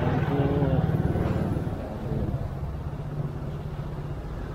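Motorcycle engine running at low speed, a steady low rumble, amid congested road traffic.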